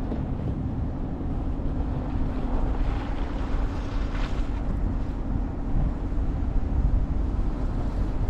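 Wind buffeting the microphone outdoors in a snowstorm, a steady low rumble with a faint hum underneath.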